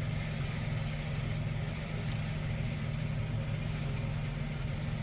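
A steady low hum, with a faint click about two seconds in.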